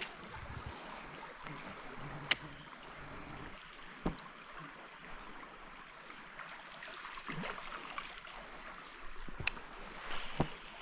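Kayak paddling on a creek: water splashing and dripping off the paddle over the running stream, with a few sharp knocks, the loudest about two seconds in.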